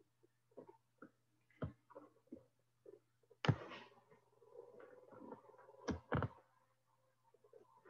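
Faint room tone with a low steady hum, broken by a few sharp clicks and knocks. The loudest comes about halfway through and is followed by a short rustle, then a quick pair of clicks comes later.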